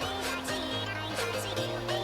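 Electronic background music with a steady beat and sustained synth tones.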